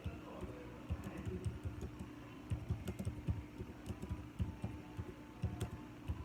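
Irregular light tapping and clicking, several taps a second and unevenly spaced, over a faint steady hum.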